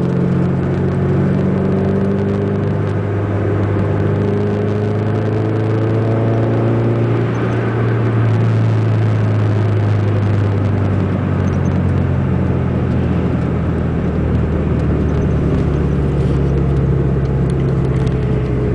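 Ford Zetec four-cylinder engine breathing through a 4-into-1 exhaust header while the car is driven, a loud deep exhaust note. The pitch climbs slowly over the first several seconds, then holds steady.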